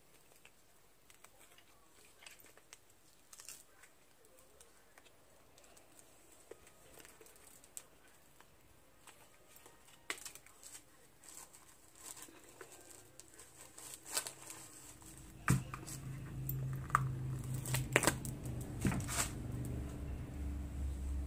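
Scattered small clicks, crinkling and peeling sounds of a cured resin ashtray being worked out of its flexible mold by hand, growing busier past the middle. A steady low hum comes in about three-quarters of the way through and is the loudest thing near the end.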